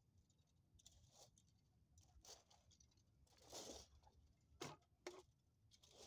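Faint, irregular scraping and rustling strokes of a rake dragging through loose wood-chip bedding. The loudest is a longer sweep about three and a half seconds in, followed by two brief, sharper strokes about a second later.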